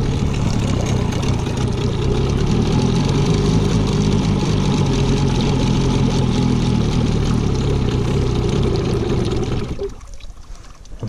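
Tohatsu 9.8 outboard motor idling steadily on its first run, during break-in. About ten seconds in, the sound drops away sharply.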